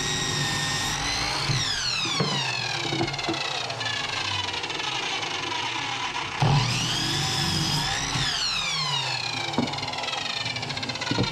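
Electric saw making two cuts through 2x4 lumber. Each time the motor whines at full speed and then winds down slowly with a falling pitch. The second cut starts suddenly about six and a half seconds in.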